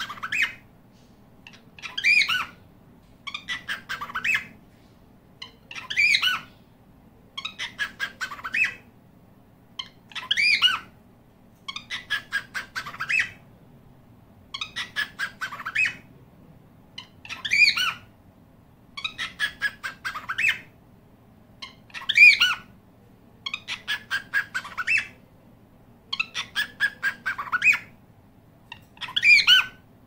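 Cockatiels calling: loud squawking calls alternate with quick runs of short repeated chirps, a new burst every two to four seconds with short pauses between.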